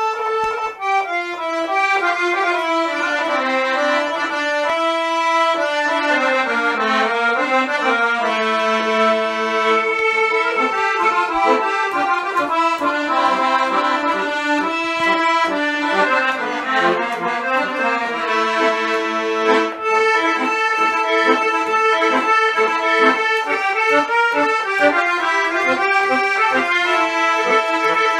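Two accordions, one a piano accordion, playing a Circassian qafe dance tune together: a running melody over sustained lower notes, the accompaniment turning more rhythmically pulsed in the second half.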